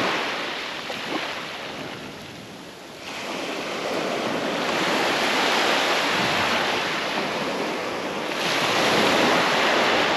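Small waves breaking and washing up a sandy beach, the wash swelling up about three seconds in and again near the end.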